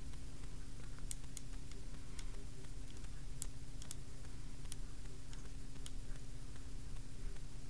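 Small plastic toy pieces clicking and tapping at irregular intervals as they are handled and pushed together, over a steady low hum.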